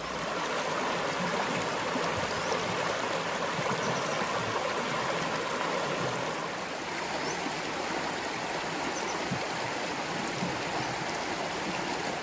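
Shallow river running fast over stones in a riffle: a steady, even rush of water.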